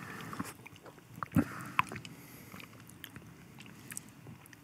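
Quiet sipping of tea: faint mouth sounds and a few small clicks, the sharpest a little over a second in.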